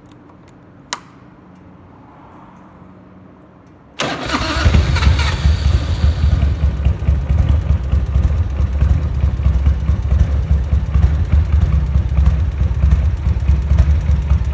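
Harley-Davidson Evolution 80 cubic-inch (1340 cc) V-twin with an Andrews EV27 camshaft being started: a single click about a second in, then at about four seconds the engine fires and catches almost at once and settles into a steady idle.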